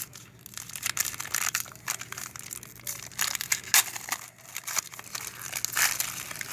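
Crinkling and crackling of trading-card pack wrappers being torn open and handled, a dense, irregular run of crackles, over a faint steady hum.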